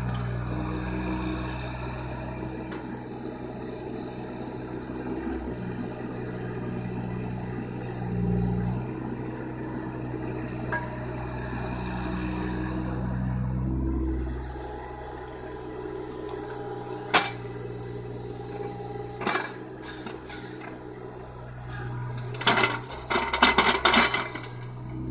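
John Deere 17D mini excavator's diesel engine running, swelling and easing several times as the hydraulics are worked, then running lower about halfway through. Near the end comes a quick run of sharp clicks and knocks, the loudest sound, after two single clicks a few seconds before.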